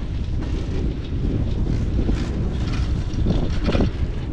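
Wind buffeting the microphone on a moving open chairlift: a steady low rumble, with a brief louder gust-like rustle about three seconds in.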